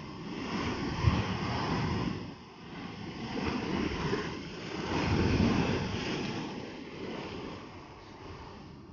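Ocean surf breaking over rocks and washing in as foam: a steady rushing wash that swells about a second in and again around five seconds, then eases.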